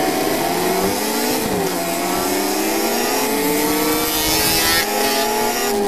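A classic 350cc racing motorcycle's engine pulling hard under the rider. Its pitch climbs and falls back several times as it revs through the gears. Heavy wind hiss and crackle from the onboard microphone run underneath.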